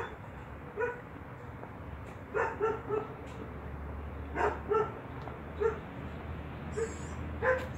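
A dog barking in the background: a string of short, high yaps, spaced irregularly.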